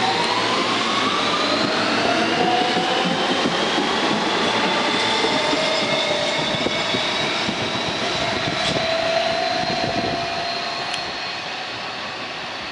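R160B subway train with Siemens propulsion pulling out of the station: its traction motors whine in several tones that rise in pitch over the first few seconds of acceleration and then hold steady, over the rumble of wheels on rail. The sound fades near the end as the train moves away.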